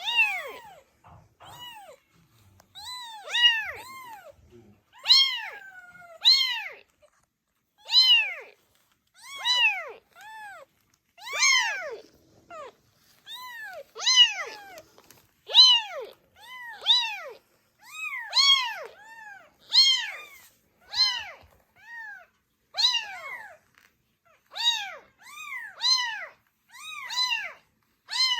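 Very young kittens meowing over and over, high-pitched cries that each rise and fall in pitch, about one a second without a break.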